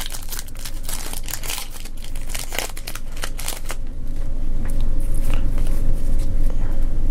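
A foil Yu-Gi-Oh! booster pack wrapper being crinkled and torn open by hand: a dense run of crackles for the first few seconds, then a steadier, lower rustle as the pack is handled.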